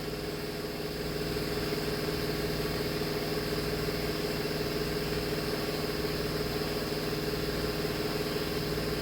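Steady mechanical hum, a little louder from about a second in.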